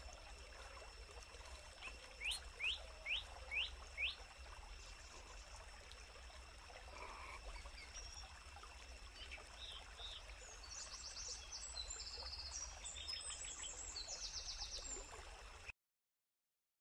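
Forest ambience with birds calling. One bird gives a run of five quick rising notes, and other birds give repeated high trilled calls over a steady high-pitched hum. Everything cuts off abruptly near the end.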